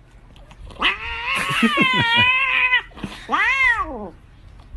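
A cat meowing twice: one long wavering call of about two seconds, then a shorter call that rises and falls.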